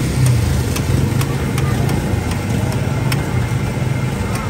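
A steady low drone like an idling engine, with scattered short clicks over it.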